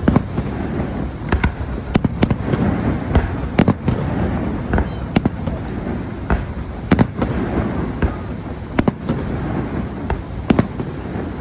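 Fireworks show: a rapid, irregular series of sharp bangs, more than a dozen, over a steady background noise.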